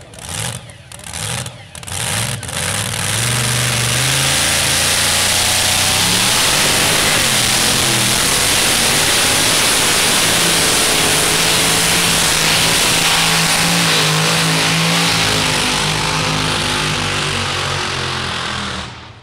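Pulling truck's engine blipped in three or four short revs, then held at full throttle as it drags the weight-transfer sled down the track, loud and steady for about sixteen seconds before cutting off sharply near the end.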